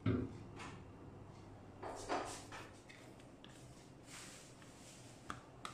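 Faint handling noises of kitchen equipment: a few short knocks and clatters, the loudest right at the start, a pair about two seconds in and two sharp clicks near the end.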